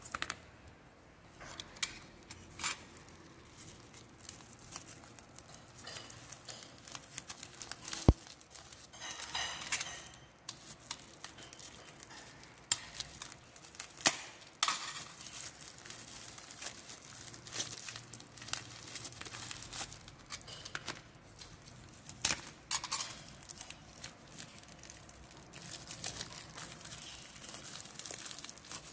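Black plastic mailer bag wrapped in tape crinkling and rustling as it is handled and cut open with a snap-off utility knife, with scattered sharp clicks and taps, the loudest about eight seconds in.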